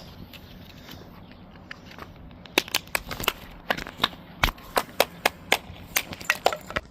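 A quick run of sharp plastic clicks and knocks from the hard plastic casing of a power outlet wall adapter being handled and worked apart. It starts a little over two seconds in and goes on at about three or four clicks a second.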